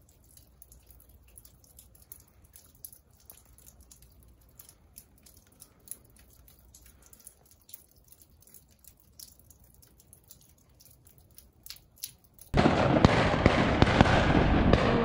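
Falling snow ticking faintly and irregularly as it lands. About twelve seconds in, a cut to loud wind buffeting the microphone.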